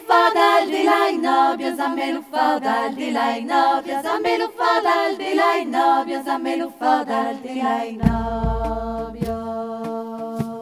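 Women's voices singing Occitan polyphony a cappella, several parts together in short rhythmic phrases. About eight seconds in, a deep thump sounds under them and the voices settle into one long held chord.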